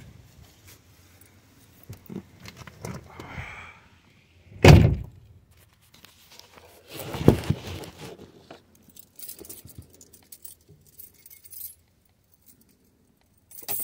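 Keys jangling and handling noises as someone settles into the driver's seat of a car, with a heavy thunk about five seconds in and a second one a couple of seconds later. No engine or starter is heard.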